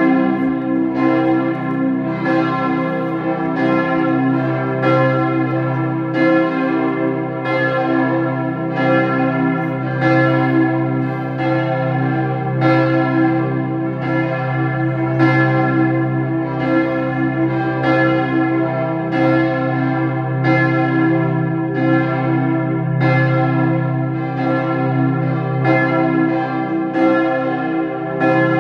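Church bells swinging in full peal, their strokes overlapping at a little more than one a second. Each stroke rings on into the next over a deep steady hum.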